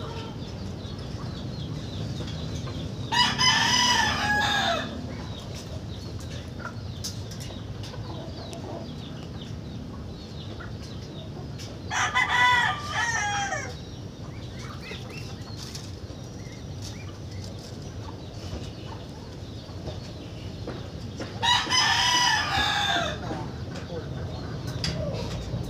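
A bird calling three times, about nine seconds apart; each call is a pitched cry about a second and a half long. A steady low rumble runs underneath.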